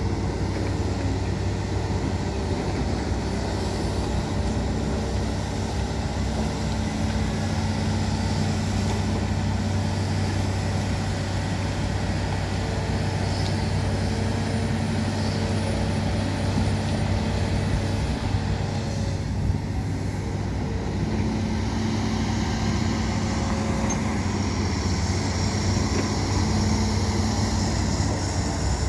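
Hitachi ZAXIS 210LCH excavator's Isuzu diesel engine running steadily under digging load, a continuous low hum with the hydraulics working the boom and bucket.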